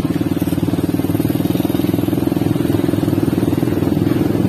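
Motorcycle engine running steadily at an even speed.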